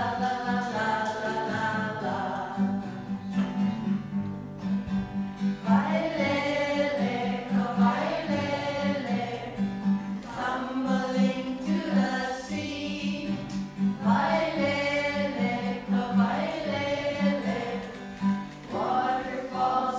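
A group of children singing together in unison, accompanied by a strummed acoustic guitar keeping a steady rhythm.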